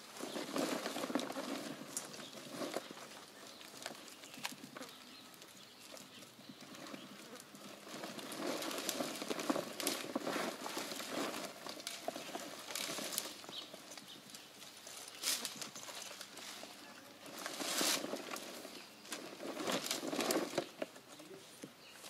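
Rustling and knocking of freshly cut date bunches, their long stalks brushing and clattering in irregular bursts as they are handled and set down into a basket.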